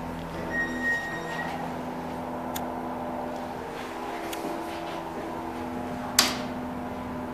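Schindler glass passenger elevator at the ground floor: a short, steady high beep about a second in over a steady low hum, a few faint clicks, then a single sharp knock about six seconds in.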